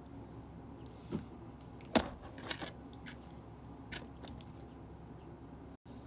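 A few short sharp clicks and taps close to the microphone, the loudest about two seconds in, over faint room noise.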